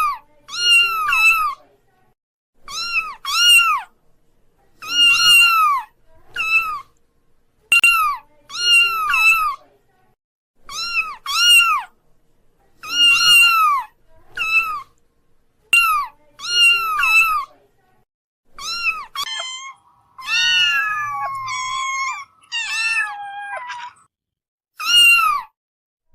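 Kittens mewing: short, high-pitched, arching calls, often in pairs, repeated every second or two, with a few longer, wavering calls about three quarters of the way through.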